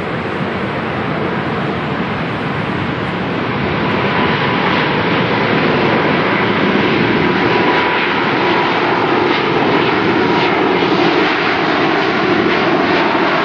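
The GE90-115B jet engines of a Boeing 777-300ER running on the ground as a dense, steady rush of noise. The noise grows louder over the first few seconds and then holds, with a faint steady whine under it in the first half.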